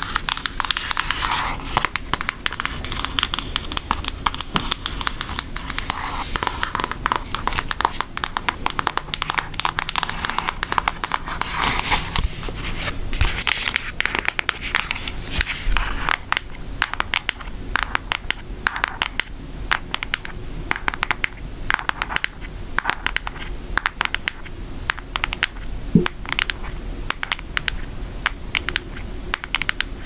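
Long acrylic nails tapping and scratching on a cardboard eyeshadow palette box: a quick, continuous run of small clicks, with scratchy stretches in the first few seconds and again around halfway through.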